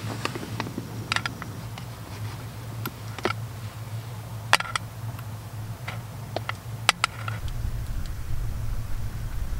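Steel camping pot set down on the metal pot supports of a canister gas stove and stirred with a wooden spoon: scattered sharp clicks and knocks, a few of them loud, over a steady low hum. Near the end a low wind rumble on the microphone comes in.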